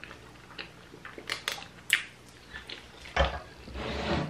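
Close-miked eating of black bean noodles: wet chewing and mouth noises, with a few sharp clicks about a second and a half in and a louder, longer noisy stretch near the end.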